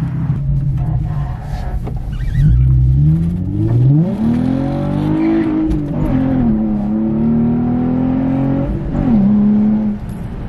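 Nissan 350Z's 3.5-litre V6 engine idling, then pulling away and accelerating through the gears of its manual gearbox. The revs climb, drop at a gear change about six seconds in, climb again and drop at a second change about nine seconds in.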